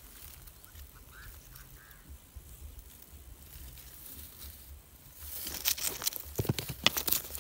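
Dry stones and gritty soil crunching and crackling close to the microphone, starting about five seconds in as the rock is handled. Before that it is mostly quiet outdoors, with a couple of faint bird chirps about a second in.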